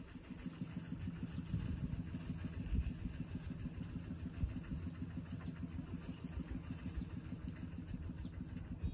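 An engine running steadily, heard as a low, even hum, with a few faint high chirps over it.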